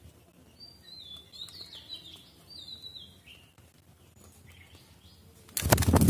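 Spotted doves' wings clattering in a sudden loud burst as the birds take off, about five and a half seconds in. Before it, small birds give a few short, high, falling chirps in the background.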